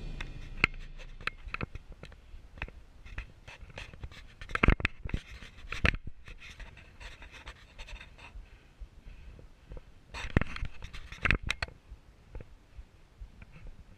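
A climber panting, with boots and hands scuffing and knocking on rock and loose stones. There are scattered small clicks throughout, and louder clusters of breaths and scrapes about four and a half seconds in and again around ten seconds.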